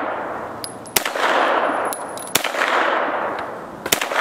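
Three shots from a Double Star 9mm AR-15 pistol, about a second and a half apart, each followed by a long rolling echo.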